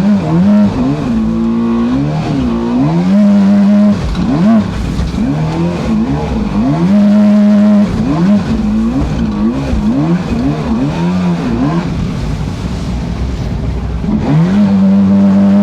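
Boat motor running under changing throttle: its pitch holds steady for a second or two, then repeatedly drops and swoops back up, and settles into a steady high run near the end.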